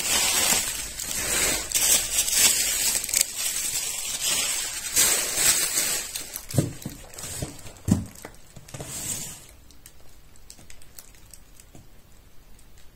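Plastic packaging crinkling and rustling as it is handled, with a couple of soft thumps; the rustling dies down about two thirds of the way through.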